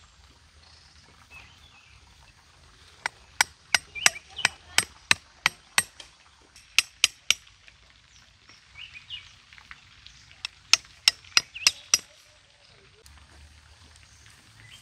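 Knife blade chopping bamboo: a run of sharp knocks, about three a second, starting about three seconds in, then a shorter run of about six knocks later on.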